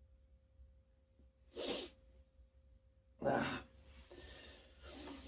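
Two short, sharp bursts of breath from a person, about a second and a half apart, the second one louder, followed by softer breathing.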